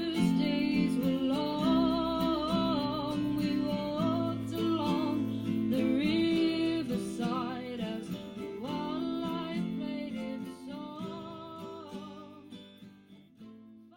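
A song with acoustic guitar and a sung melody, fading out over the last few seconds.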